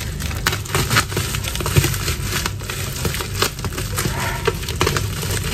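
Scissors cutting open a plastic shipping mailer, the plastic crinkling and crackling with many short, irregular snips.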